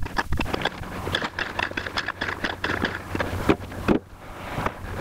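Broken rock clattering and knocking as loose pieces are handled by hand, a string of irregular knocks with a sharper one about three and a half seconds in. Wind on the microphone and a steady low hum lie underneath.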